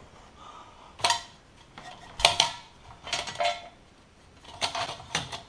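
Ceiling fan's metal housing and mounting hardware clinking and rattling as it is turned and worked loose overhead: clusters of sharp metallic clinks, each with a short ring, about once a second.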